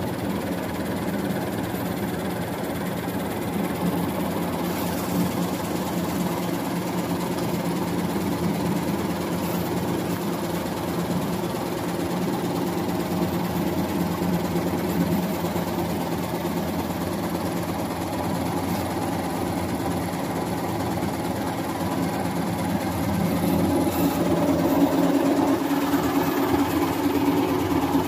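Zipper cord machine running with a steady mechanical hum, getting louder in the last few seconds.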